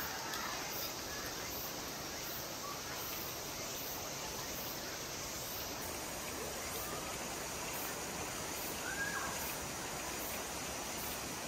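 Steady rush of water in a large wooden waterwheel's channel, with a brief faint chirp about nine seconds in.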